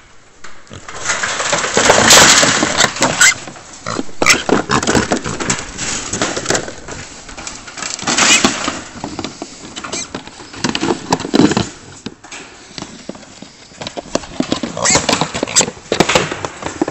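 Several trapped young wild pigs calling in loud, harsh bursts of squeals and grunts, with sharp clanks and rattles of the wire-mesh cage trap among them.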